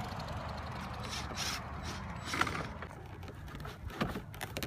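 Cordless drill driving a screw through a vinyl fence rail into the post to lock the rail in place, with a short squeak partway through and a few light clicks near the end.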